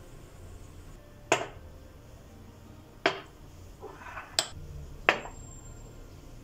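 Four sharp clicks, unevenly spaced, each with a short ringing tail, and a softer rustle between the second and third.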